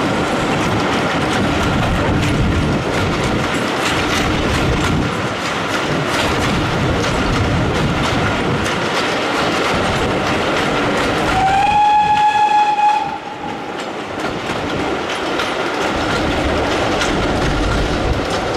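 A train's coaches running along the track, heard from an open coach window: a steady rumble with the clickety-clack of wheels over rail joints. About eleven seconds in, the locomotive's whistle sounds one steady note for about a second and a half.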